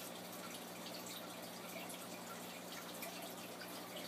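Aquarium water trickling steadily with many small drips and splashes, over a steady low hum.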